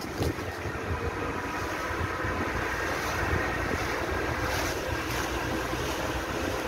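Small open motorboat under way: a steady motor drone with water rushing along the hull and wind buffeting the microphone.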